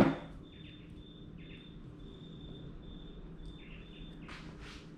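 Faint high-pitched chirping of a small animal outdoors, in short repeated notes at one pitch. A brief rustle sounds at the very start, and two soft rustles come near the end.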